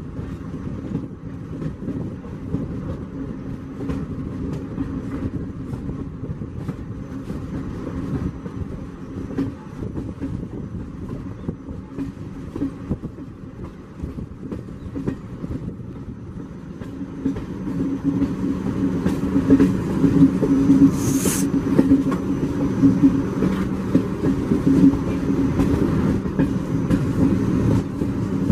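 A passenger train running along the track, heard from an open window or door of the coach: steady rumble of wheels on rails with frequent clicks over the rail joints. It grows louder about two-thirds of the way through, with a brief hiss shortly after.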